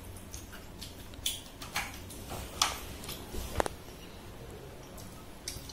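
Eating noises: a handful of short, sharp clicks and smacks of chewing and handling food, spread over a few seconds, over a low steady hum.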